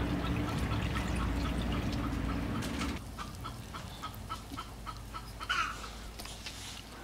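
A bird calling in short chirps repeated about two or three times a second, with a louder call a little after five seconds in, over a low rumble that drops away suddenly about three seconds in.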